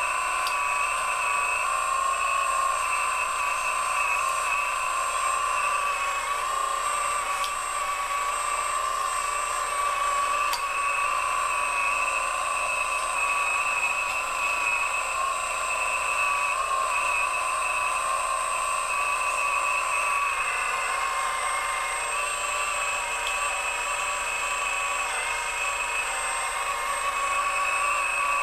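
Radio-controlled Komatsu scale-model excavator's motor whining steadily as it digs into a dirt pile, the pitch dipping slightly now and then with the load.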